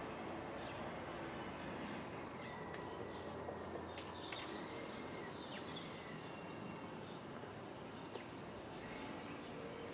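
Faint outdoor ambience: small birds chirping and calling with short high notes, over a low steady background hum.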